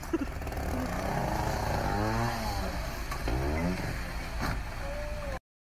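Small motorbike engine revving in repeated rising and falling bursts over a steady low engine rumble; the sound cuts out abruptly near the end.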